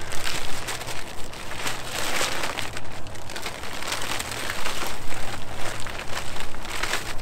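Plastic tarp groundsheet crinkling and rustling as it is pulled out of its stuff sack and unfolded, in a run of irregular rustles.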